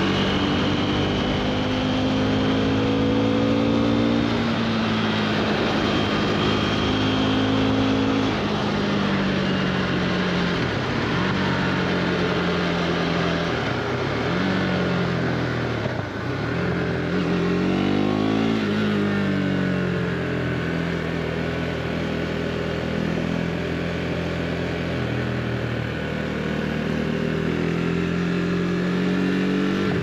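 KTM RC390's single-cylinder engine through an Akrapovic slip-on exhaust, running under way and changing pitch with the throttle and gears. The pitch holds steady at first and steps down a few times, dips about halfway through, rises and falls quickly just after, then settles to a steady run again.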